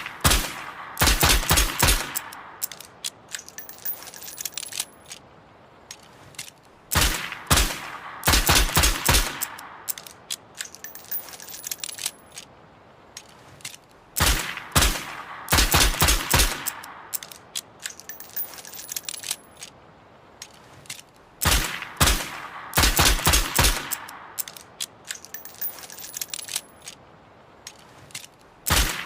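Revolver sound effect: a quick string of about five sharp shots followed by a few seconds of scattered metallic clicks, the whole pattern repeating four times about every seven seconds.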